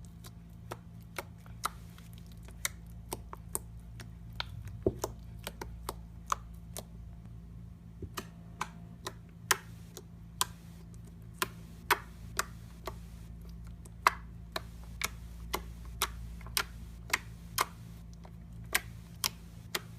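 A series of irregular sharp clicks, about one or two a second and uneven in strength, over a steady low hum.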